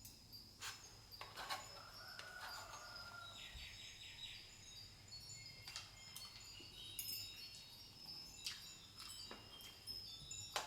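Faint, light metallic tinkling: scattered sharp clicks with high ringing tones, and a short chirping trill about three and a half seconds in.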